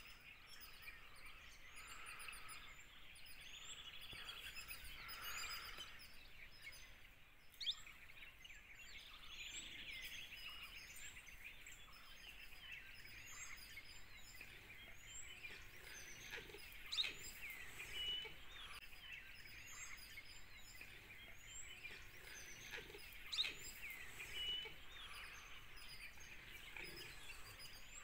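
Outdoor forest ambience full of bird calls: many short high chirps repeating throughout, with a few louder sharp calls standing out about a quarter of the way in, just past halfway, and again later.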